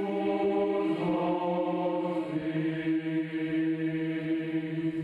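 Large mixed amateur choir singing long, sustained chords together, with the harmony moving to a new chord about halfway through.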